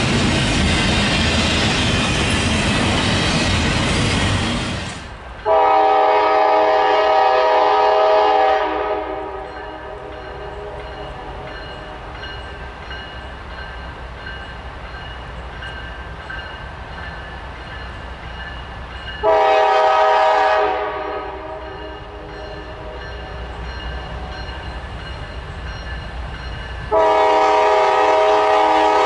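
Rumble and wheel-on-rail noise of a passing train for about five seconds. Then a locomotive's multi-chime air horn sounds a chord of several notes three times: a blast of about three seconds, a shorter blast around twenty seconds in, and a long blast starting near the end, with quieter steady train noise in between.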